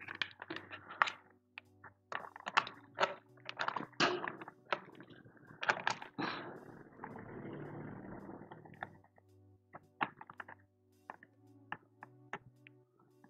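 Plastic cover pieces being handled and fitted onto a gaming chair's backrest-to-seat joint: a run of small clicks and knocks, with a stretch of rustling from about six to nine seconds in.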